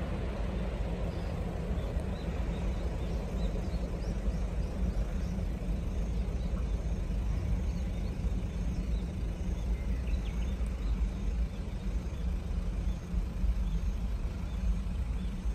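Wind buffeting the microphone as a steady low rumble, with faint bird chirps in the middle. A rushing noise dies away over the first few seconds.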